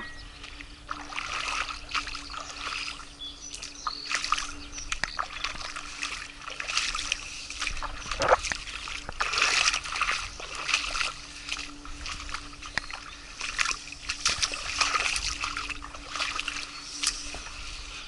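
Water splashing and sloshing in shallow river water, in irregular bursts.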